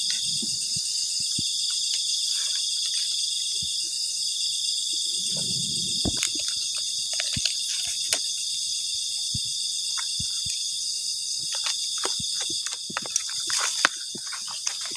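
Dense, steady, high-pitched chorus of forest insects, several pitches layered together. Light scattered clicks and scrapes come from a spoon stirring eggs in a cooking pot.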